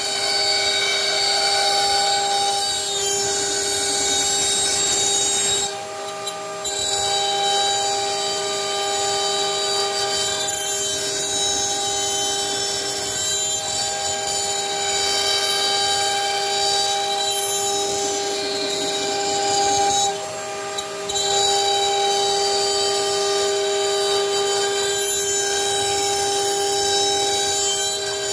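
CNC router spindle running with a steady whine as its bit mills a wooden panel, the cutting noise mixed in. The sound drops briefly twice, about six seconds in and again around twenty seconds in.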